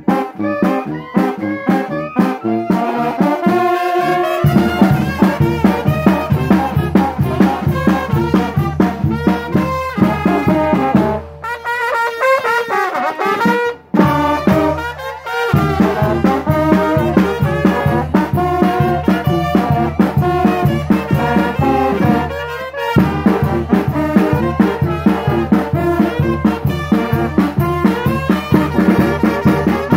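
Brass band playing: horns over a steady beat of bass drum and cymbals, with a brief break near the middle.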